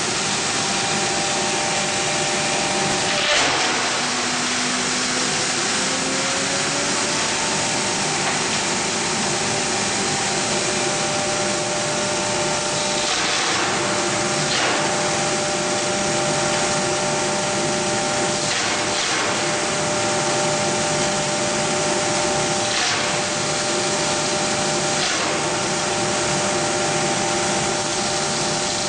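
Hammer mill running steadily as it grinds strips of furniture-board waste fed into its hopper: a loud, even whirring rush with a few steady hums in it. It crunches more loudly now and then as pieces are fed in and shattered.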